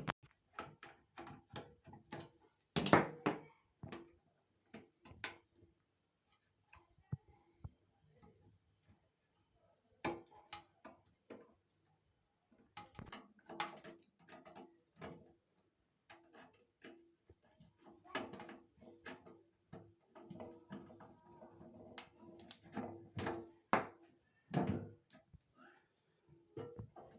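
Scattered clicks, taps and knocks of a domestic gas stove's metal parts being handled and unscrewed as it is taken apart, with a louder thunk about three seconds in.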